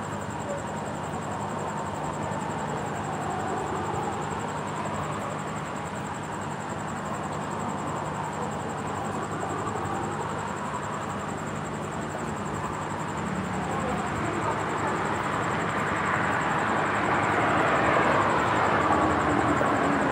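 Road traffic on a multi-lane city street: a steady wash of car engine and tyre noise, swelling near the end as vehicles drive past.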